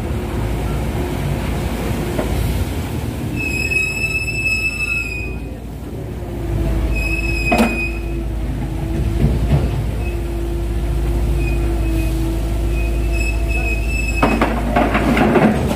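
Dredging crane hoisting a clamshell grab bucket: the machinery runs steadily with a low hum, while the hoisting gear gives high metallic squeals a few times, about four seconds in, again near eight seconds and around thirteen seconds. Near the end comes a rush of water and mud splashing.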